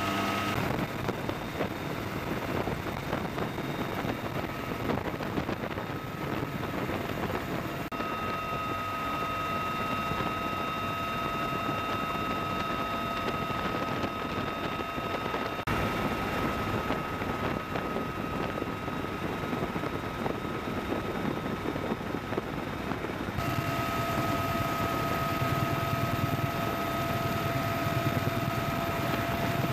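Military helicopter turbine engines and rotor running, a steady high whine over a dense rush of rotor and wind noise, heard from inside a UH-1Y Venom's open cabin door. The sound shifts abruptly a few times.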